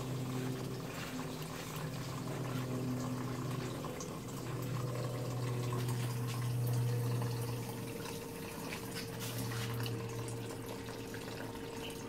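Water running in a small aquaponics system: a steady trickle and splash of circulating water into the tank, over a steady low hum.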